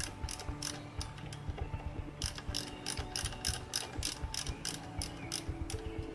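Hand socket ratchet clicking in quick runs, about five clicks a second with short pauses, as nuts on a compressor's connecting rod are worked off. Faint background music underneath.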